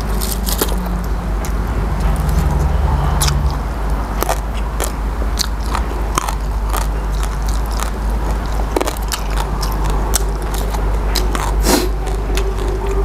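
Close-miked chewing and crunching of crisp raw vegetables, with many sharp, irregular crunches over a steady low hum.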